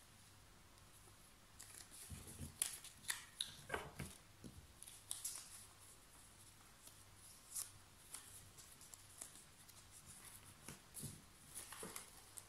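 Faint rustling and crinkling of a sheet of paper being folded and creased by hand. The small crackles come thickest a couple of seconds in, then sparser.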